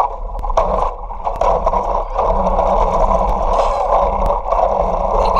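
Wheels of a child's ride-on rolling over an asphalt street, with the camera riding on it: a steady grinding, rolling noise with small dips in level.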